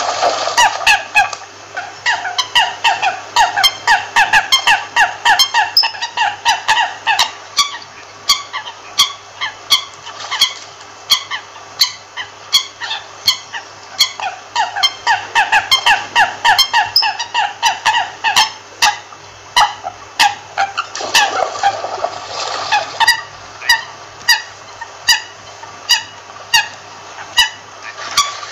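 American coots calling in a rapid, overlapping series of short nasal notes, several a second, mixed with sharp clicks throughout. About two-thirds of the way through, a lower call slides downward. A faint steady low hum runs underneath.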